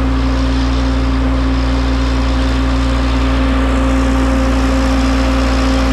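Engine-driven irrigation pump running steadily as it draws river water through a large suction hose. It makes a constant drone with an even low hum that does not change.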